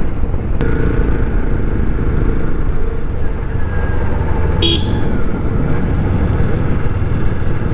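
TVS Apache RTR 160 single-cylinder motorcycle engine running steadily at low road speed, with wind rumble on the helmet-mounted microphone. A brief horn toot sounds about halfway through.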